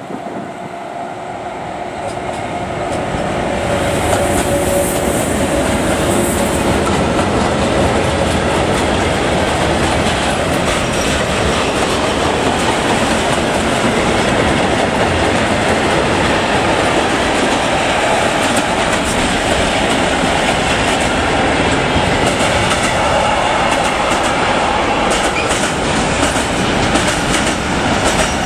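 ÖBB Taurus (Siemens class 1116) electric locomotive drawing near and passing, its sound rising over the first four seconds or so. Then a long train of loaded container flat wagons rolls past with a steady, loud rumble and the clatter of wheels on the rails.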